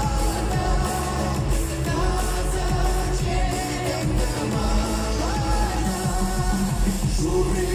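A man and a woman sing a Ural Cossack folk song together into microphones over amplified backing music with a steady beat.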